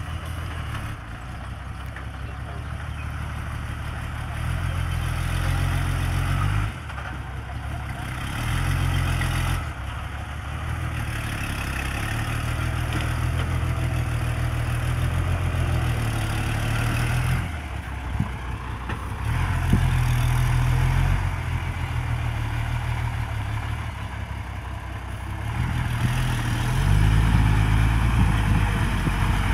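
Diesel engine of a loaded dump truck working as it crawls over rough, ploughed field ground, revving up and easing off several times.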